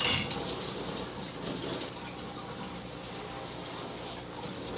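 Shower head spraying water in a steady rush, with a brief louder gush right at the start.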